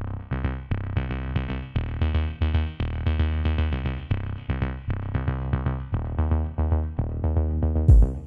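Background music: an electronic track with a drum machine beat and synthesizer.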